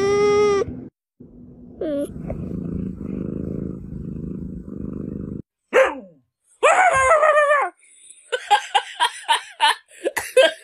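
Domestic cats vocalising: a drawn-out meow cut off short, a brief cry, then a quick falling cry and a wavering yowl. Near the end comes a fast run of short pulsed sounds, about four a second.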